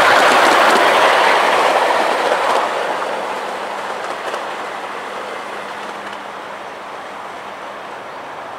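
Miniature 7¼-inch gauge ride-on locomotive, a maroon diesel-outline engine with its driver aboard, running past close by on the rails and away along the track. Loudest at the start, then fading steadily as it recedes.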